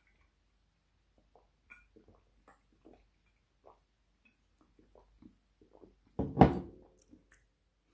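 A series of faint gulps as a man swallows a drink from a glass bottle, followed about six seconds in by a louder knock as the glass bottle is set down on the wooden table.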